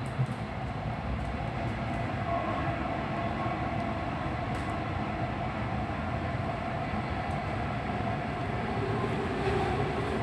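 Passenger train running along the track, heard from inside the carriage: a steady rumble of wheels on rails with a faint whine.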